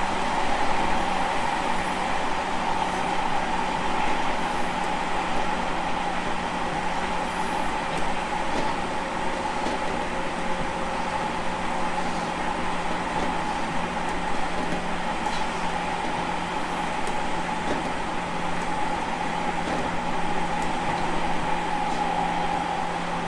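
JR Kyushu 811 series electric train running at a steady speed, heard from inside the car: a constant high-pitched whine of the kind called the "jet sound" (ジェット音), here very harsh, over steady rumble and rolling noise from the wheels on the rails.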